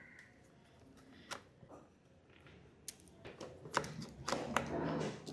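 Small sharp clicks and taps of a hand tool working loose the star (Torx) screws on a motorcycle's air-filter box cover, sparse at first, then busier with a light rattle from about three seconds in.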